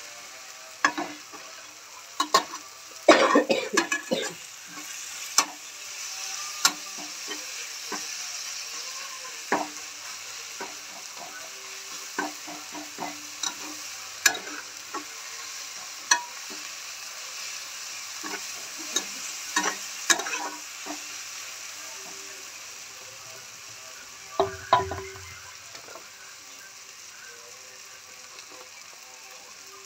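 Chopped tomatoes frying in a steel kadai with a steady sizzle, while a steel spatula stirs and scrapes against the pan with sharp clanks. The clatter is heaviest about three seconds in, and the stirring stops near the end, leaving only the sizzle.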